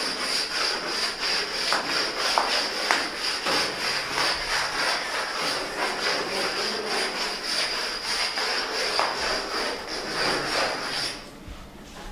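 A small pad sanding a concrete ceiling by hand in fast, rhythmic scraping strokes, with a steady high-pitched whine alongside; both stop about eleven seconds in.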